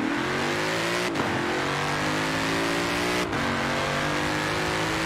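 A car engine accelerating hard, its pitch climbing steadily. It drops back sharply at two upshifts, about a second in and about three seconds in.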